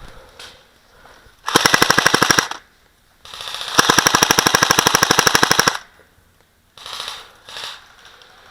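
Airsoft gun firing two full-auto bursts of rapid, evenly spaced shots, about fifteen a second: a short burst of about a second, then a longer one of about two and a half seconds.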